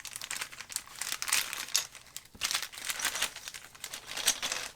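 Plastic packaging crinkling and rustling in irregular bursts while spare keycaps are handled.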